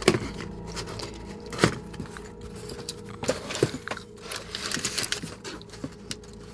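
Cardboard shipping box being opened by hand: sharp cardboard snaps and scrapes as the flaps are pulled apart, a sharp one right at the start and another about a second and a half in. Then the white packing paper inside rustles as a hand moves it.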